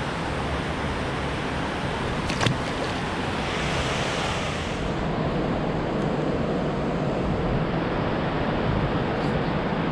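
Steady rush of wind and moving river water, with one sharp knock about two and a half seconds in and a kayak paddle blade splashing into the water about four seconds in.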